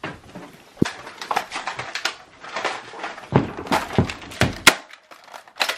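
An irregular run of sharp knocks, clicks and rustles, busiest in the second half, with a short pause and two last knocks near the end.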